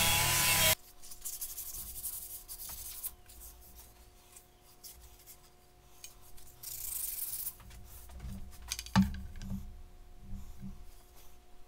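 A bench-mounted power tool runs loudly as the curved laminated maple rocker is fed past it, cutting off abruptly under a second in. Then the wooden rocker is handled, with light rubbing and scraping against a faint steady hum, and knocks sharply on the wooden bench top about nine seconds in, followed by a few soft thuds.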